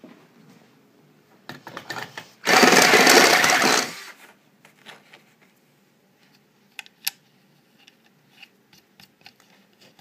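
A power drill runs for about a second and a half, with some rattling just before it. After it come a few light clicks of small metal parts being handled.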